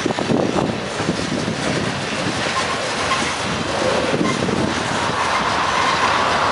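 Freight train cars rolling past close by, their steel wheels rumbling and clacking on the rails.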